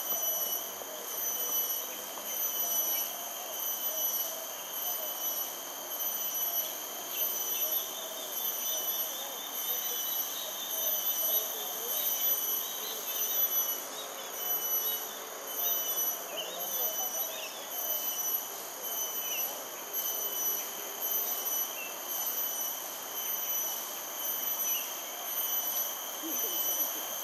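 Insects droning in a steady chorus at several high, unchanging pitches, swelling and fading in regular pulses. Faint chirps join in the middle.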